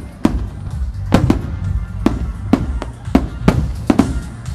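Aerial fireworks shells bursting in quick succession, about nine sharp bangs with rumbling echoes, over music playing along with the display.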